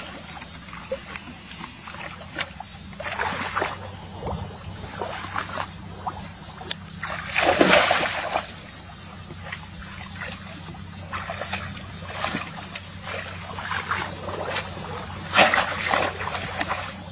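Shallow muddy water splashing and sloshing as a woven basket fish trap is plunged and dragged through it and a person wades, in several irregular splashes, the loudest about halfway through and another strong one near the end.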